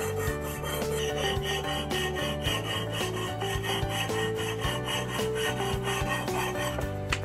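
A jeweller's piercing saw rasping through a silver sheet in short back-and-forth strokes, over background music with a melody and steady bass.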